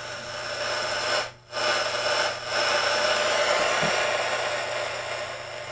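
The speaker of a 1940s BC-348 aircraft radio receiver giving out a steady rush of shortwave static with a faint steady whistle as it is tuned across the band. The noise cuts out for a moment about a second and a half in, dips again briefly, then carries on.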